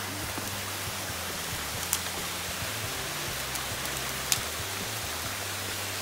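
Steady rushing of a rocky mountain stream, with a campfire giving two sharp pops, about two seconds and four seconds in.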